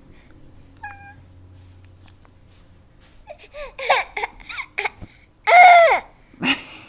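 Baby of about eight months squealing and babbling: a string of short high vocal sounds from about three seconds in, with a loud, long, high squeal near the end.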